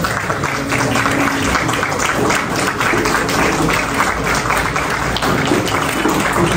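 Crowd applauding steadily, with a few voices faintly underneath.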